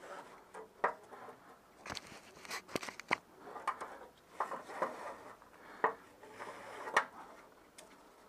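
Gloved hands handling tools and metal parts under a car: scattered clicks, knocks and clinks with rubbing and rustling between them, the sharpest knocks about a second in, near the middle and twice near the end.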